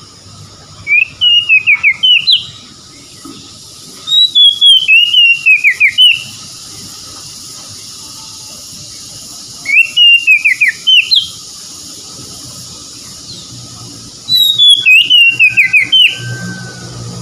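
Oriental magpie-robin singing: four phrases of quick whistled notes that mostly fall in pitch, each lasting under two seconds, with pauses of a few seconds between.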